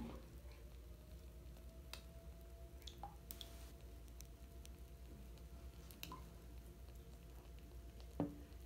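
Lush Over and Over bath bomb fizzing faintly in bath water, with scattered small pops and drips over a steady low hum. A louder knock comes near the end.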